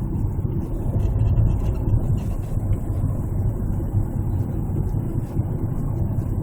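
Steady low road and drivetrain rumble inside a moving Hyundai Santa Fe DM's cabin. A few faint, irregular higher sounds come in around one to two and a half seconds in; the owner reports a persistent creaking from the front underside while driving.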